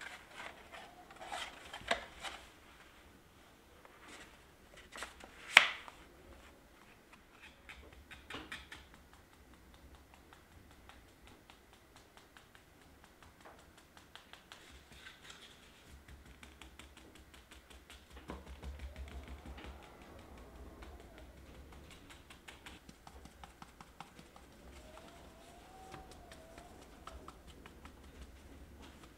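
Close hand-work sounds: a few sharp taps in the first six seconds, the loudest about five and a half seconds in, then a long run of light, rapid clicking and ticking.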